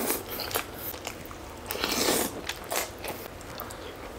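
A person biting and chewing food, a string of short, noisy eating sounds with the loudest about two seconds in.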